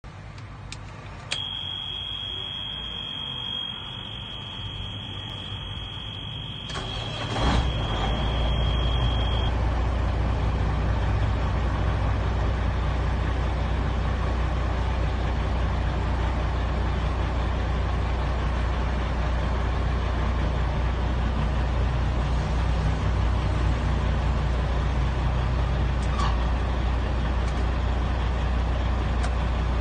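A dashboard warning buzzer sounds a steady high beep, then about seven seconds in the Peterbilt truck's diesel engine starts and settles into a steady low idle. The buzzer stops a couple of seconds after the engine catches, as oil pressure comes up.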